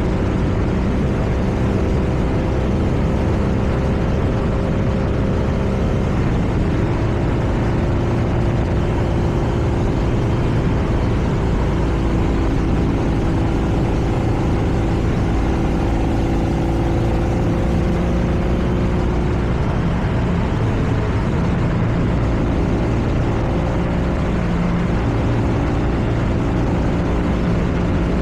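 BMW R nineT's air/oil-cooled boxer twin running at a steady cruising pace, with wind and road noise. The engine note holds steady, shifting slightly in pitch a couple of times.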